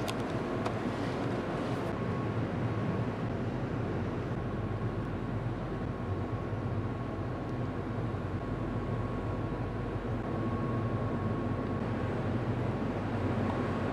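Steady low hum of a containership's machinery and ventilation, heard inside its accommodation, with a faint steady whine above it.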